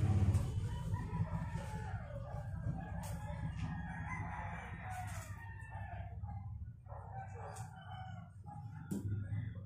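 A rooster crowing, with a few faint taps.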